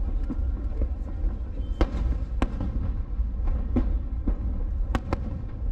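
Aerial fireworks shells bursting: a string of sharp bangs, the loudest about two seconds in and a close pair near five seconds, over a steady low rumble.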